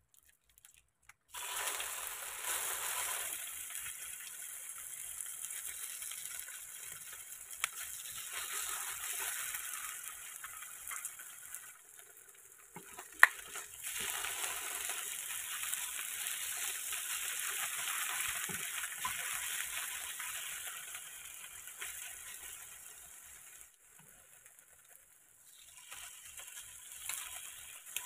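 Pork tocino sizzling in hot oil in a frying pan as pieces are laid in with tongs, starting suddenly just over a second in. A single sharp click about halfway through stands out above the frying.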